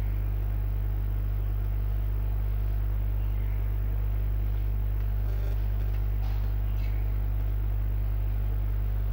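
Steady low electrical mains hum, with a few faint chalk strokes on a blackboard about five to seven seconds in.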